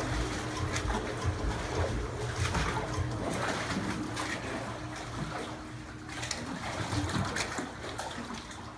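Electric boat lift motor humming steadily as it lowers a boat on its cradle, with water trickling and splashing around the hull.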